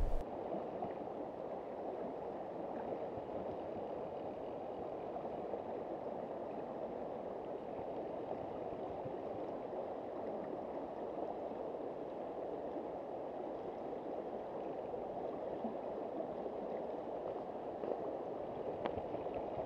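River current rushing and gurgling over stones: a steady flowing noise.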